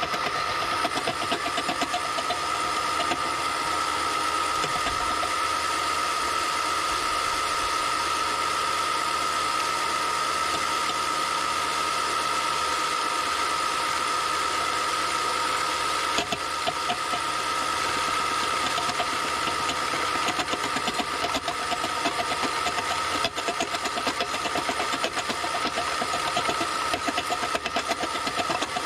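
RC scale construction machinery running: a steady high whine from small electric motors and a hydraulic pump, with a fast fine rattle under it, as the RC hydraulic excavator works its arm and bucket.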